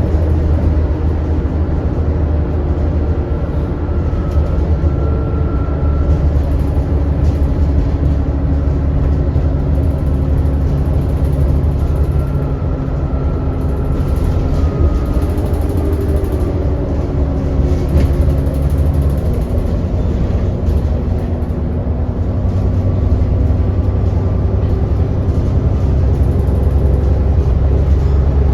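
Inside an ADL Enviro400 double-decker bus on the move: the engine running with a steady low drone, mixed with road noise, and a faint whistling tone coming and going at times.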